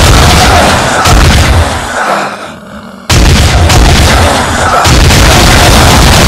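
Loud, distorted gunfire sound effect, dense and continuous. It fades down about two seconds in and cuts back in abruptly a second later.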